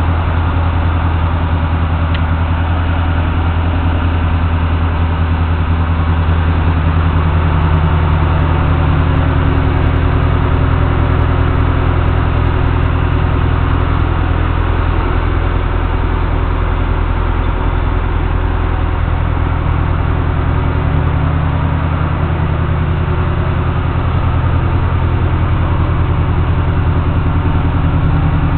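Pickup truck engine idling steadily, a continuous low even hum.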